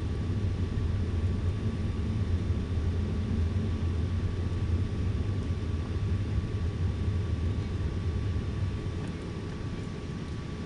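Steady cabin noise inside an airliner: a low, even rumble of engines and airflow with a faint steady whine, easing a little near the end.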